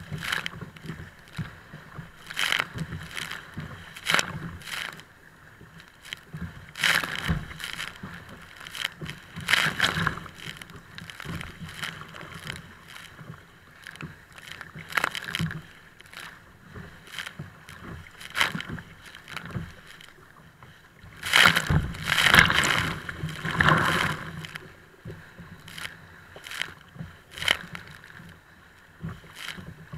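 Choppy waves slapping and splashing against and over a kayak's bow, in irregular splashes every second or two, the biggest run of splashes about three-quarters of the way through.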